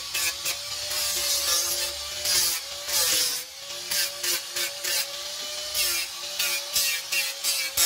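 Electric angle grinder with an abrasive disc running with a steady motor whine, broken by repeated bursts of gritty grinding as the disc is pressed against the cut edge of a fibreglass helmet shell to smooth it.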